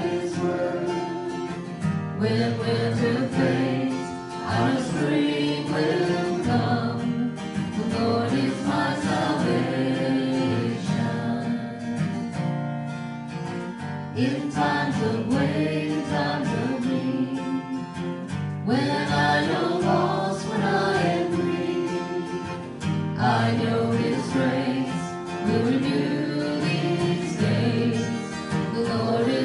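Live worship song: a woman singing the melody into a microphone over a strummed acoustic guitar.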